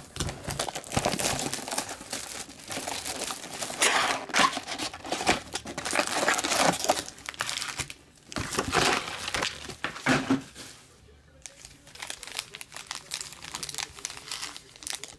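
Plastic shrink-wrap crinkling and tearing as a sealed trading-card box is unwrapped, then foil card packs crackling as they are taken out and handled, in irregular bursts with a quieter spell about two-thirds in.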